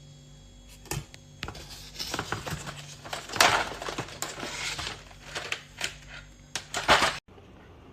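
Typing on a mechanical keyboard fitted with MDA-profile PBT keycaps: a quick, irregular run of key clacks, densest in the middle, that cuts off abruptly near the end.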